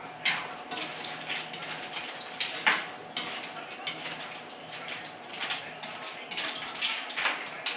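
A cooking utensil scraping and clinking against a pan on a gas stove as food is stirred: irregular knocks and scrapes, with one louder clank a little under three seconds in, over a faint steady hum.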